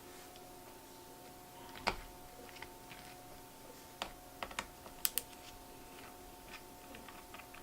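Scattered light clicks and taps of a small precision screwdriver and tiny screws against an opened 2012 MacBook Pro's aluminium case as screws are loosened, a few clicks close together about five seconds in. A faint steady hum lies underneath.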